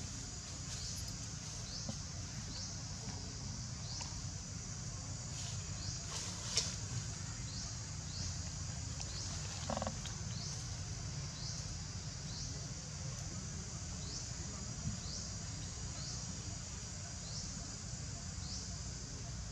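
Forest ambience: a steady high-pitched hum with a short rising chirp repeated about once a second, over a low rumble. A sharp tick comes about a third of the way in.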